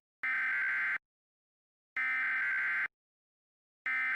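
Emergency Alert System (SAME) digital data bursts, the end-of-message signal of the alert: a harsh buzzing screech repeated at about one-second gaps, two full bursts and a third starting near the end.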